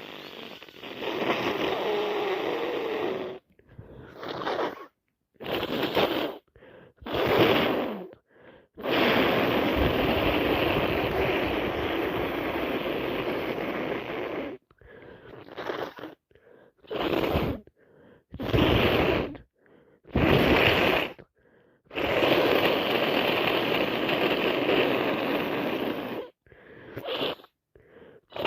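Congested nose of a person with a heavy cold: a string of short, sharp sniffs between three long, loud stretches of noisy snuffling through the nose.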